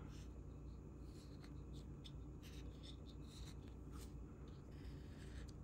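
Faint, intermittent scratching on a paper scratch-off lottery ticket: a series of short scrapes as squares are worked. A steady low hum runs underneath.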